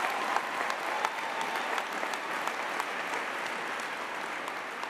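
Large audience applauding, with dense clapping that gradually dies down near the end.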